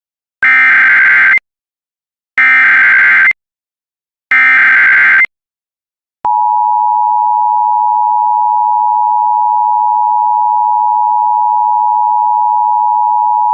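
Emergency Alert System SAME header: three screeching bursts of data tones, each about a second long and about two seconds apart. About six seconds in, the EAS two-tone attention signal starts and holds steady as one loud, unbroken dual-pitch tone.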